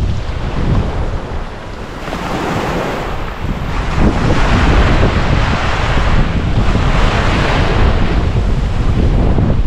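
Ocean surf breaking and washing up the beach, with wind rumbling on the microphone. The wash dips briefly, then swells louder about four seconds in.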